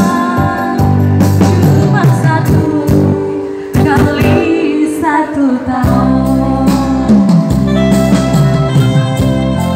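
Women singing together into microphones, with electronic keyboard accompaniment played through a PA system.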